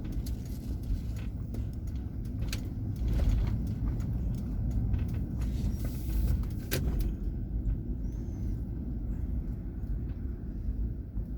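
Car driving, heard from inside the cabin: a steady low engine and road rumble, with a couple of sharp clicks.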